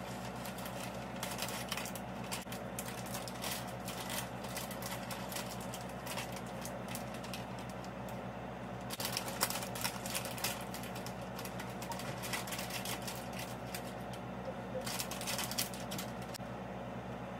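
Plastic bags of shredded cheese crinkling as the cheese is shaken out over macaroni in a foil pan: a run of small crackles, busiest about nine seconds in and again near the end, over a steady hum.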